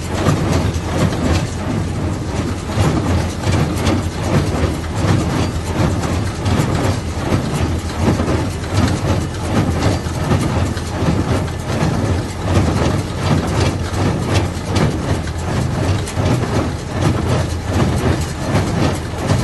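Claas Dominant square baler running on the tractor's PTO, its mechanism clattering in a steady repeating rhythm over the tractor engine's low, even hum.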